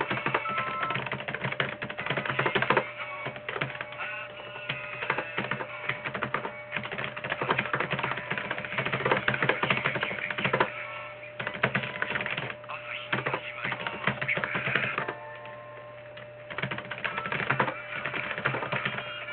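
Fast, continuous typing on a computer keyboard, a dense run of key clicks that slackens for about a second near the three-quarter mark and then resumes.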